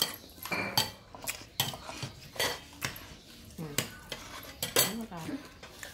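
A wooden spatula scraping and knocking against a black frying pan, with sharp clicks coming about twice a second.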